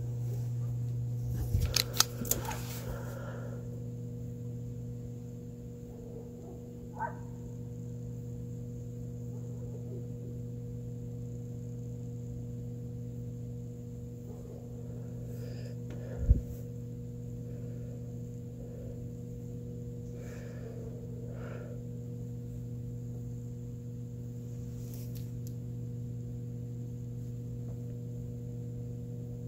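A steady low hum, with a cluster of clicks and knocks about two seconds in, a short click around seven seconds and a single thump around sixteen seconds.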